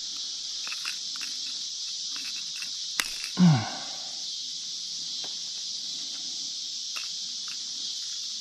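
Steady high-pitched insect chorus, with scattered light clicks and taps. About three seconds in comes a sharp click, then a brief low sound that falls in pitch.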